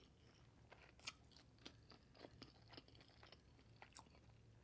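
Faint, close-up chewing of a mouthful of biryani rice with the lips closed: small wet mouth clicks and smacks, a few a second and uneven, with a slightly louder click about a second in and another near the end.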